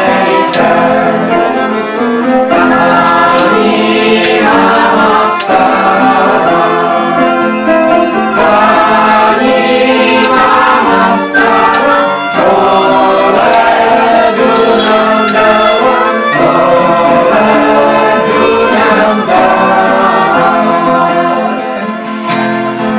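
A small group of voices singing a song together to an acoustic guitar, with a recorder playing along.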